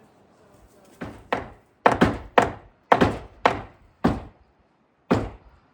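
About nine sharp knocks on wood, unevenly spaced and starting about a second in, the last one coming after a short pause.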